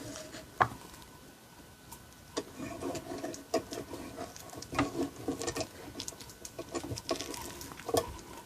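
Small clicks and rattles of an MTL Classic camlock being handled and locked with its key: a sharp click about half a second in, then bursts of light metal rattling and ticking.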